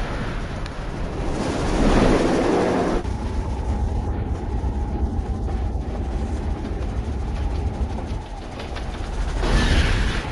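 Steam train rolling on rails with a steady low rumble and clatter. Loud rushes of noise come about two seconds in and again near the end.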